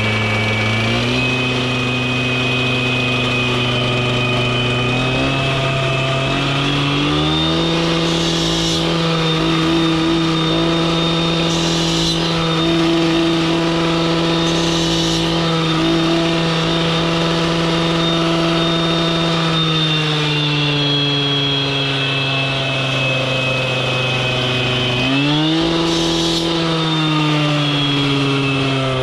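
Heavy construction machine's engine running under load, its speed rising early on, holding high, easing down and then revving back up. A few sharp knocks stand out over it.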